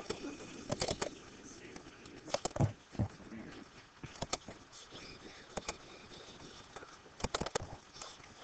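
Computer mouse clicking: a scattered series of sharp clicks, some in quick pairs or little clusters, with a couple of duller knocks about two and a half and three seconds in.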